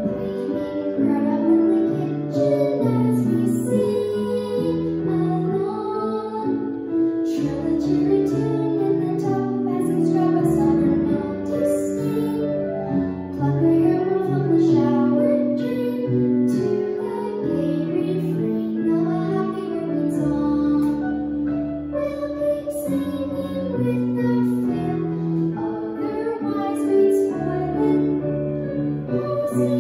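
A young girl's solo singing voice with instrumental accompaniment, performing a song in sung melodic phrases with some held notes.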